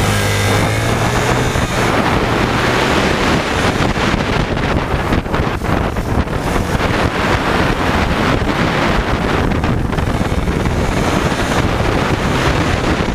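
Heavy wind buffeting the microphone of a camera mounted on the front fork of a moving dirt bike, over the bike's engine running. A steady low engine tone is clearest for the first three seconds, then sinks under the wind.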